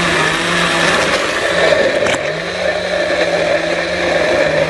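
Electric blender motor running steadily at speed, puréeing mango pieces into a smooth pulp. A brief knock comes about two seconds in, and the motor carries on.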